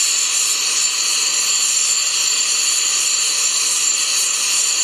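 Handheld gas torch flame burning with a steady hiss while it heats cast iron to red heat for brazing.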